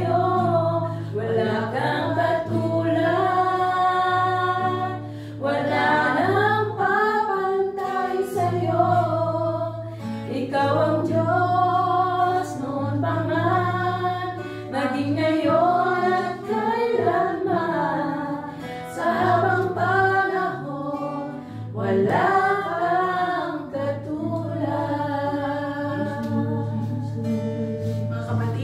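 Women singing a praise and worship song together, accompanied by an acoustic guitar.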